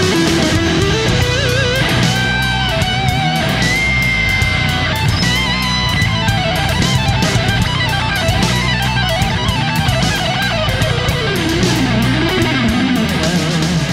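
Background music led by electric guitar, its lead notes bending and wavering, over a steady beat.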